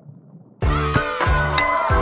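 Music starts suddenly about half a second in: an outro jingle with drum beats and a melody, after a brief quiet gap.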